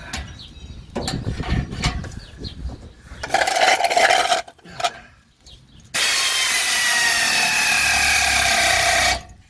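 A handheld power tool running in two bursts, a short one of about a second and then a steady run of about three seconds that starts and stops sharply, with some clanking of tools before it; the tool is most likely tightening the exhaust clamps.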